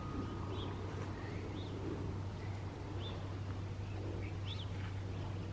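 A large flock of birds calling: scattered short, high chirps over a steady low hum.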